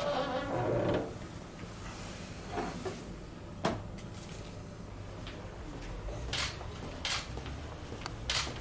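Steel locker door opened with a rattle of thin sheet metal, followed by a few sharp clicks and knocks.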